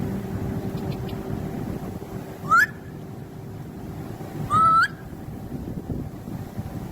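Blue-and-gold macaw making unusual calls: a short call rising in pitch about two and a half seconds in, then a longer one two seconds later that rises, holds level and rises again at the end.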